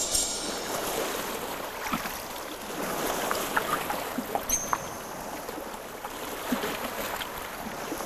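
Water splashing and lapping, with scattered small clicks and ticks.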